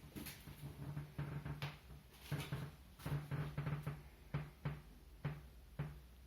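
A series of irregular knocks and clatters, about a dozen, each with a brief low hum beneath it.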